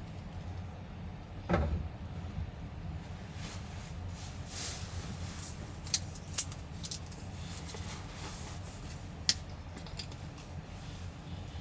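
Things being handled in a small camper space: scattered rustles and clicks with three sharp knocks, two close together about six seconds in and one near nine seconds, over a steady low rumble.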